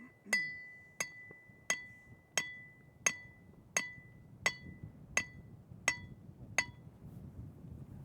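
Hammer striking metal in a steady rhythm: ten evenly spaced ringing blows, about one every 0.7 s, that stop about two-thirds of the way through.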